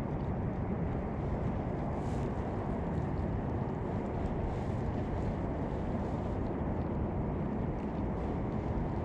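Steady low rumble with no clear pitch, typical of wind buffeting the microphone.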